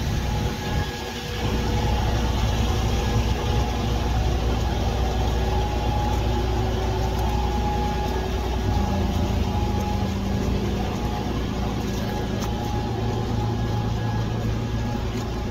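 Heavy engine running steadily with a low rumble; a further steady tone joins about nine seconds in.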